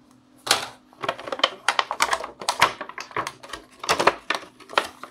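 Clear plastic blister packaging crinkling and crackling in a quick, irregular run of sharp crackles as a toy walkie-talkie is pulled out of it by hand.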